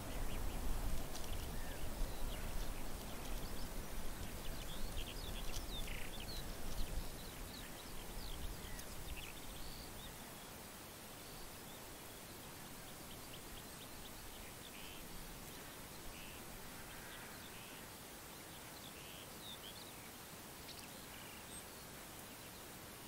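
Outdoor ambience with small birds chirping faintly and irregularly. Underneath is a low rumble that fades away over the first eight to ten seconds, leaving a steady faint hiss.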